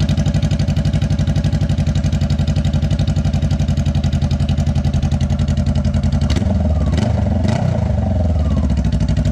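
2013 Honda CBR500R's parallel-twin engine idling with its stock slip-on muffler removed, so it exhausts straight out of the bare link pipe: a loud, even, rapid pulsing.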